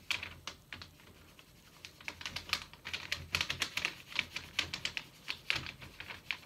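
A pen scribbling quickly back and forth on paper, colouring in a drawn number, at several strokes a second. There is a short lull about a second in, then denser strokes.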